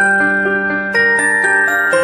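Background music with struck, bell-like mallet notes playing a light melody.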